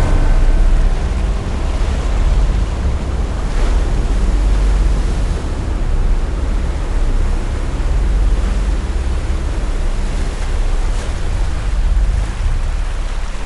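Surf-like rushing noise that swells and ebbs every couple of seconds, like waves, over a steady low drone: an ambient ocean-and-wind passage in the soundtrack. It fades away at the very end.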